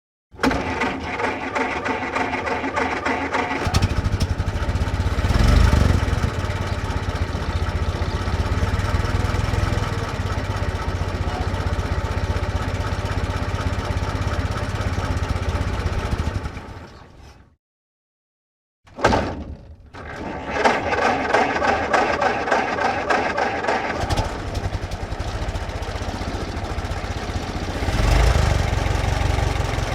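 1924 Ford truck's four-cylinder Model T engine, heard from outside, catching and idling with a brief rev, then dying away when switched off. After a second of silence it starts again, runs on at idle and revs up once more near the end.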